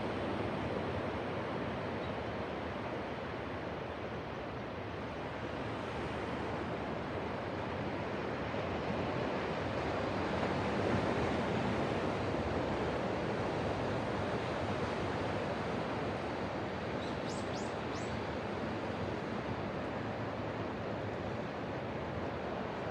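Ocean surf breaking on the shore: a steady, continuous rush of waves that swells a little about halfway through.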